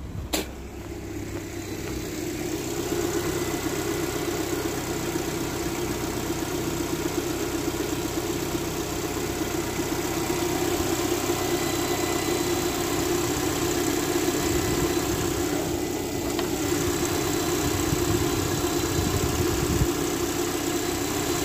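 Four-cylinder car engine idling steadily just after a cold-weather start on freshly fitted Denso spark plugs. It runs evenly and quietly, 'whispers', with nothing rattling.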